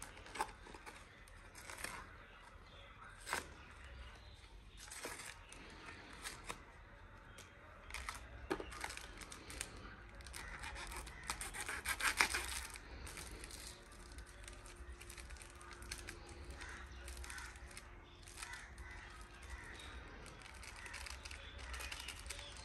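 Rubbing and scraping of hands working spice masala into raw chicken pieces, with scattered small clicks and knocks. The handling gets louder about halfway through.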